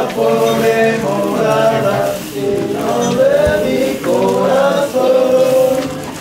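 Voices singing a song in long, held notes.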